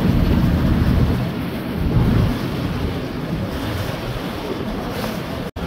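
Wind buffeting the microphone over choppy water, a steady low rumbling noise that is loudest in the first couple of seconds. The sound cuts out for an instant near the end.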